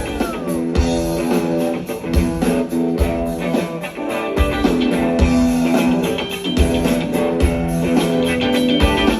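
Live funk band playing, with electric guitar to the fore over bass and a steady kick drum beat.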